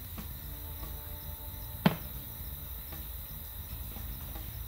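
Insects chirping steadily in woodland, with one sharp knock about two seconds in.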